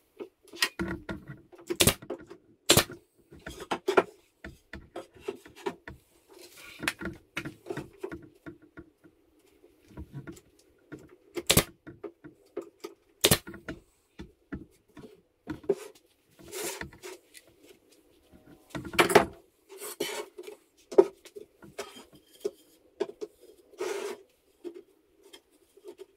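Wooden drawer panels being handled and knocked together during assembly, with brad nailer shots driving brads into the drawer. Irregular clicks and knocks with a handful of sharper cracks, over a faint steady hum.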